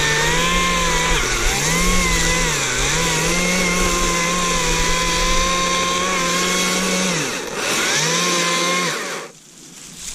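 Stihl MSA 120 C battery chainsaw running at full speed as it cuts a small tree. Its motor whine dips in pitch twice in the first three seconds, cuts out about seven seconds in, then runs again briefly and stops near the end.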